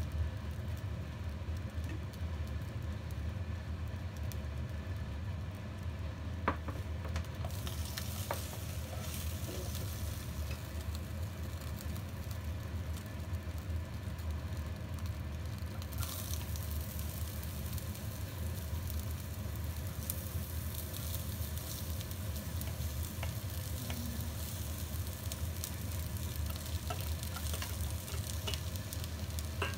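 Hot oil sizzling in a wok. The sizzle comes up about a quarter of the way in and grows louder about halfway, over a steady low hum.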